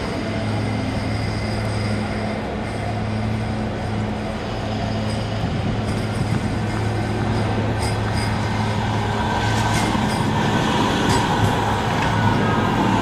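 Manchester Metrolink M5000 tram running along street track toward and past, its rolling noise growing louder over the last few seconds, with clicks and a faint wheel squeal as it draws close. A steady low hum lies under it.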